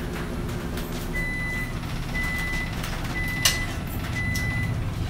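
A vehicle's reversing alarm beeping four times, about once a second, over the low steady rumble of an engine. A single sharp clink about three and a half seconds in.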